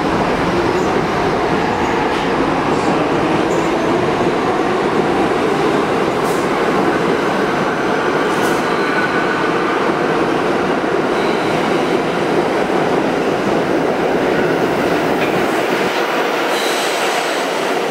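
Ten-car Bombardier R62A subway train pulling out of an underground station: a steady, loud rumble of wheels on rail, with a couple of sharp clicks over rail joints and faint wheel squeal. The deep rumble drops away near the end as the train pulls into the tunnel.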